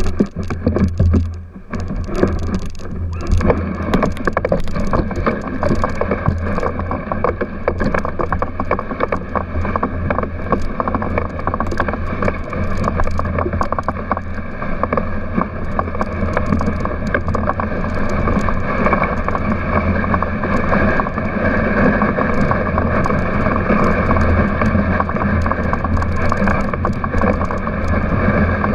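Dogsled runners scraping and hissing over snow, heard from a camera mounted on the moving sled, with many small clicks and rattles from the sled and a steady low rumble. The first two seconds are rougher and more uneven, then the noise settles into a steady run.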